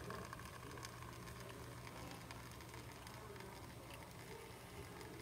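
Espresso streaming from a La Pavoni Professional lever machine's bottomless portafilter into a glass shot cup: a faint, steady trickle over a low hum.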